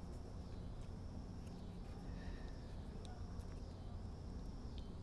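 Faint outdoor ambience: a steady low rumble with faint, high chirping calls repeating about once a second, and a few small, light clicks from hands working a plastic sensor plug onto a coolant reservoir.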